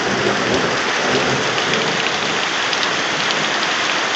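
Heavy rain pouring steadily, a dense even hiss of drops hitting surfaces.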